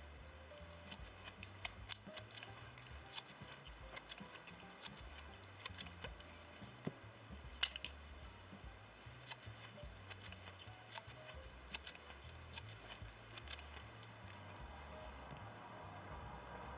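Faint, irregular small clicks and ticks of hands working a plastic tatting shuttle and thread while tatting a chain of double stitches, about one or two a second, with one sharper click a little before halfway.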